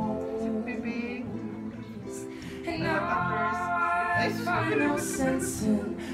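Background music: a song with a singing voice over instrumental accompaniment.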